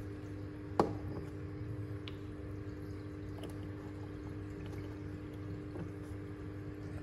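Submersible aquarium pump running with a steady hum, with water trickling around it. A single sharp plop a little under a second in.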